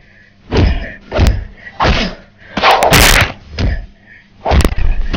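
A run of punch-and-hit sound effects: about six heavy impacts a second or so apart, with a longer, harsher crash about three seconds in.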